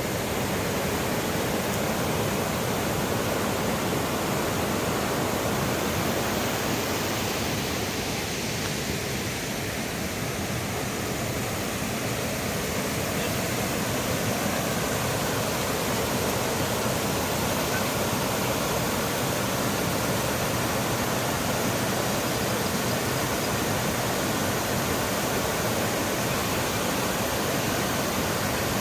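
Shallow, swift forest river rushing steadily over its bed.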